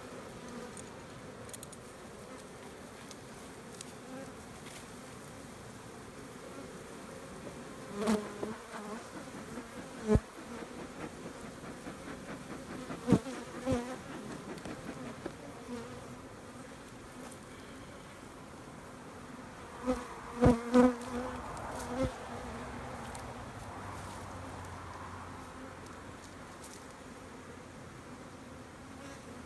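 Honeybees buzzing steadily around an opened hive, with a few sharp knocks scattered through, the loudest a close pair about twenty seconds in.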